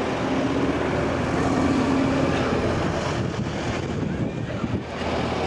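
Junkers Ju 52/3m trimotor's radial engines running steadily as the plane flies past overhead, with wind buffeting the microphone.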